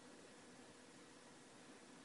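Near silence: room tone of faint steady hiss with a low hum.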